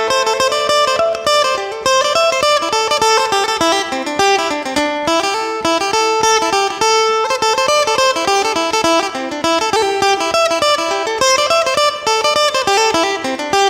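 Phin, the three-string Isan lute of northeast Thailand, playing a lam phloen tune: a quick picked melody over a steady drone note.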